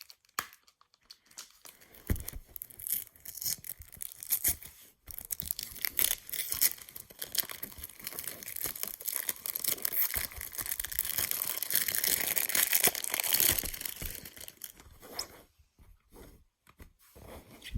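Packaging being crinkled and torn by hand during an unboxing, with scattered small clicks of handling. It is busiest between about six and fifteen seconds in, then thins to a few clicks.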